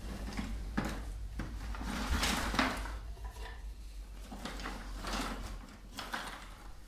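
Wooden boards being handled in a plastic bucket, knocking and scraping against each other and the bucket: a couple of sharp knocks about a second in, then longer scrapes around two seconds in and again near the end.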